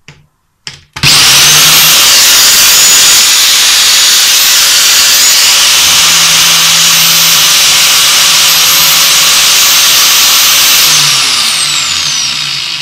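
Angle grinder with a fidget spinner mounted in place of its disc, switched on about a second in and running at full speed with a loud, high whine. Near the end it is switched off and winds down, the whine falling in pitch as it fades.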